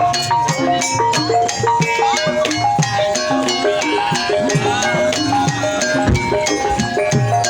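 Gamelan-style ensemble music of the kind that accompanies an ebeg hobby-horse dance: struck metal notes in a quick, repeating melodic pattern over drums, with a busy rattle of percussion on top.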